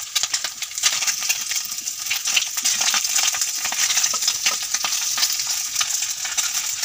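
Small fish sizzling and crackling as they fry in hot oil in a metal kadai, with a flat metal spatula stirring and scraping them around the pan.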